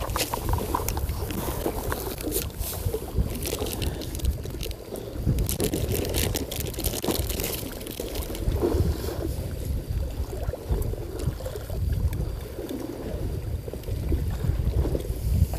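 Seawater sloshing and lapping against the breakwater, with a fluctuating low rumble underneath and scattered sharp clicks in the first half.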